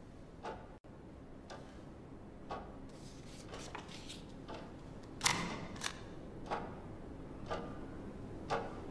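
Wall clock ticking steadily, about once a second. One louder knock with a brief rustling tail comes about five seconds in.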